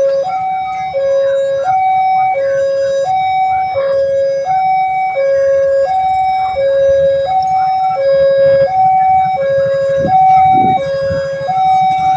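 Railway level-crossing warning siren sounding a continuous two-tone hi-lo alternation. Each tone lasts about 0.7 s, so the full cycle repeats about every second and a half.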